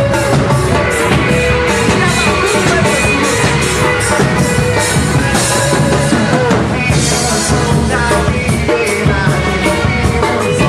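A live worship band plays an upbeat rock-style song, driven by a drum kit with a steady beat of cymbal strikes.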